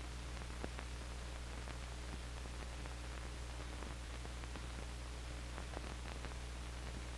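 Surface noise of an old film soundtrack: a steady low hum and hiss, with scattered faint clicks and crackles.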